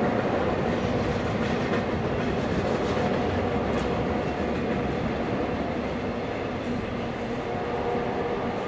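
Double-stack intermodal container cars of a Norfolk Southern freight train rolling across a steel deck truss bridge: a steady din of wheels on rail that grows slightly fainter toward the end.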